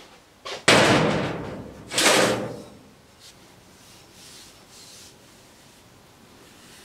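Heavy piece of steel railway rail set down on a steel-topped workbench: a small knock, then two loud metallic clanks about a second apart, each ringing out briefly.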